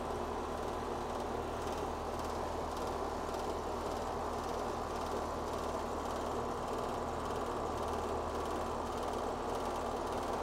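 Heat pump outdoor unit running: a steady low compressor hum under an even rush of air that does not change.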